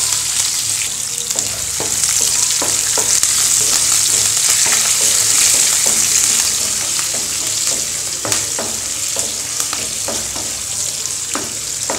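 Sliced onions, green chillies and dal frying in hot oil in a non-stick pan, a steady sizzle, with scattered short clicks and scrapes from a wooden spatula stirring them.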